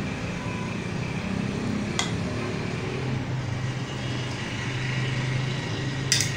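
Road traffic: a motor vehicle engine running with a steady low drone. There is a sharp click about two seconds in and two more clicks near the end.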